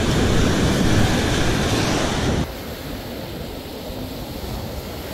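Beach surf washing, with wind buffeting the microphone; loud at first, it drops suddenly about two and a half seconds in to a softer, steady wash of surf.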